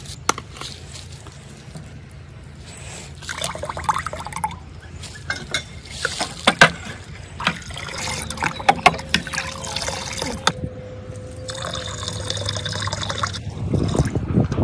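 Green pani puri water poured in a thick stream from a steel vessel into a glass tank, splashing as it fills, for several seconds in the second half. It is preceded by a few sharp clicks.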